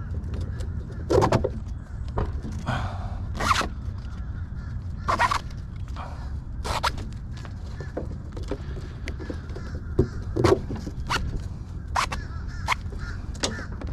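Plastic strap buckles clicking and webbing straps rattling against a plastic cooler as hands unfasten the cooler from a beach cart. Several short, sharp knocks and clicks come at irregular intervals over a steady low rumble.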